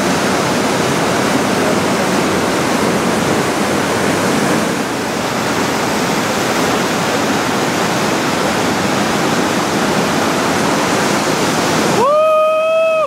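Loud, steady rush of whitewater from a big-water river rapid. Near the end the water noise drops away and one held high-pitched call, rising at its start, sounds for about a second.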